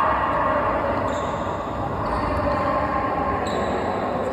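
Sounds of a badminton doubles rally in a hall: a few sharp racket-on-shuttlecock hits over a constant background of voices.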